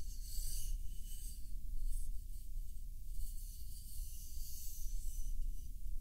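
A wooden taiko drumstick (bachi) rubbing and scraping against a plush toy's fur close to the microphone: soft scratchy rubbing in several strokes over a low rumble.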